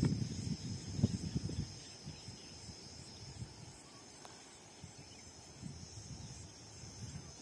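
Steady high-pitched insect chirring from the trackside scrub, with low gusts of wind buffeting the microphone in the first second or so that die away.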